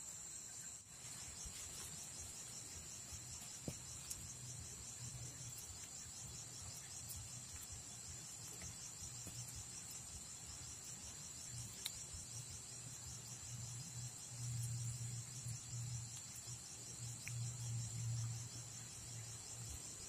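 An insect trilling without pause, a high, fast-pulsing song. A low rumble swells in and out in the second half, and there are a few faint clicks.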